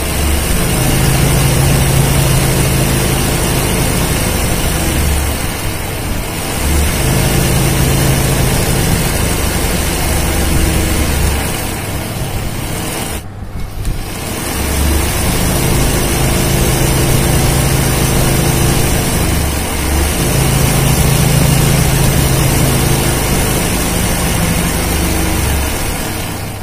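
Zigzag embroidery sewing machine running at speed, stitching a satin-stitch border, with a steady low motor hum that comes and goes in stretches of a few seconds. The stitching breaks off briefly about halfway through.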